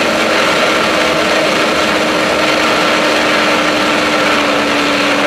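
Ack Attack streamliner motorcycle's twin turbocharged Suzuki Hayabusa engines running hard at speed, heard from inside the fairing: a steady engine drone creeping slowly up in pitch under a loud rush of wind noise.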